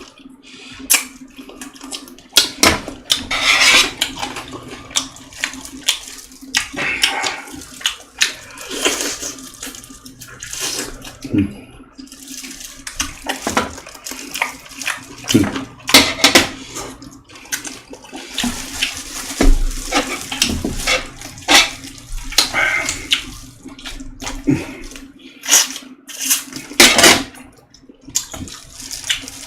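Close-up wet eating sounds of boiled chicken (baeksuk) being chewed and pulled apart, coming in irregular bursts with short pauses between them.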